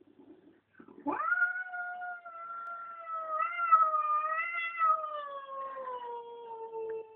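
A domestic cat's long, drawn-out yowl, starting about a second in with a quick rise in pitch, then held with a wavering pitch that slowly sinks toward the end. It is a cat's territorial threat call at a rival cat.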